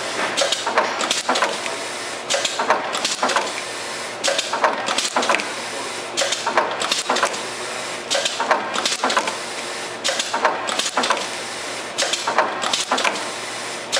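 Automatic syringe labeling machine running: a steady mechanical hum with a burst of clicking and clattering that repeats about every two seconds with each machine cycle.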